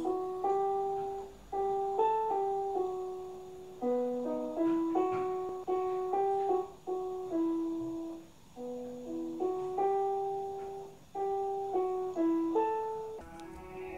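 Solo piano playing a slow melody, each note starting sharply and fading, in short phrases with brief pauses between them.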